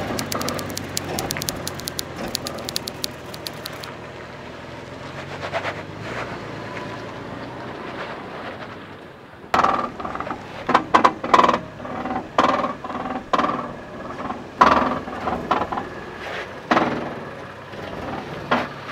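Toyota 4Runner crawling over a sandstone ledge. For the first few seconds a crackle of grit and small stones crunches under the tyres over the low running engine. From about halfway, a string of irregular knocks and scrapes comes from tyres and underbody working against the rock.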